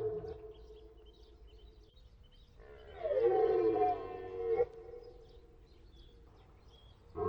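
Red deer stag roaring in the rut: the end of one roar at the start, then one deep, drawn-out roar of about two seconds beginning a little under three seconds in.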